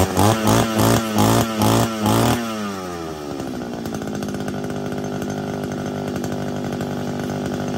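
Old small petrol engine revved in a quick series of throttle blips, then dropping back about two and a half seconds in to a steady idle.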